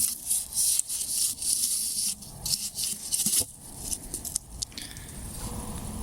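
Lit firework fuse burning, hissing and sputtering in irregular high-pitched spurts.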